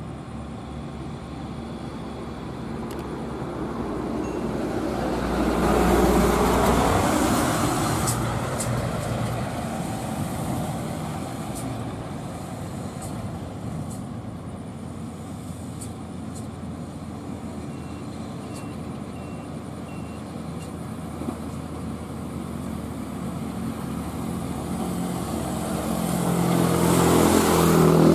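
Heavy diesel trucks climbing a grade under load: a Hino tractor-trailer cement tanker's engine runs steadily. About six seconds in, a vehicle passes close by with a falling pitch. Near the end, the engine noise builds again as a second Hino truck comes up behind it.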